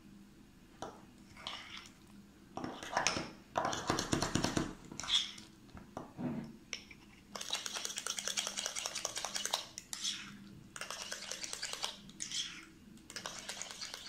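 Metal spoon stirring a thick curd mixture in a glass bowl, clinking and scraping against the glass in quick runs of strokes that come and go.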